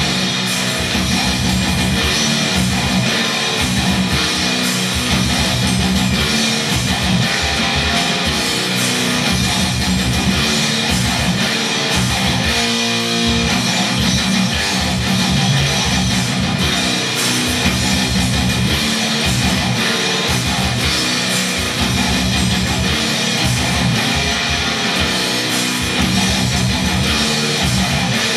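Heavily distorted electric guitar playing fast, low death-metal riffs through a high-gain amplifier.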